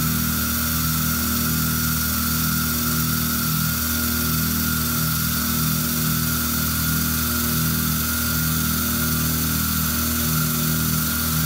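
EMCO F1 CNC milling machine running, its spindle driving a small end mill through an aluminium LED heat-sink blank to cut fin slots. The sound is a steady whine over a low hum that pulses unevenly.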